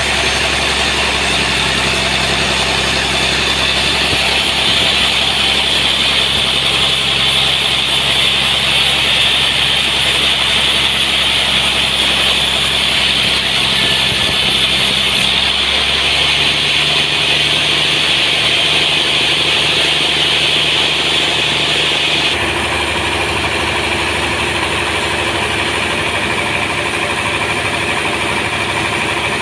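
Sawmill running steadily as it saws a large trembesi (rain tree) log: a constant machine hum with a high hiss over it. About 22 seconds in, the hiss drops away and the machine note changes.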